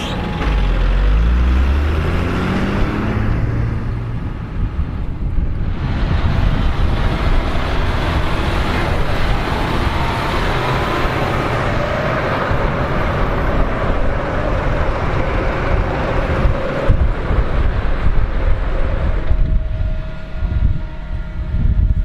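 Large farm tractor's diesel engine revving up over the first couple of seconds, then running hard at high revs with dense mechanical noise as the tractor and trailed potato harvester pass.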